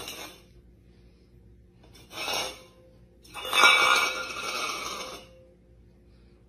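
A stainless steel bowl scraping across a tile floor as a cat pushes it with its paw: three scrapes, a short one at the start, another about two seconds in, and a longer, louder one near the middle.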